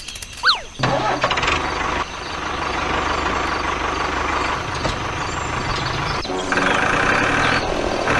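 A heavy vehicle engine starts up and runs steadily, its sound changing about six seconds in. It is preceded by a short falling whistle half a second in.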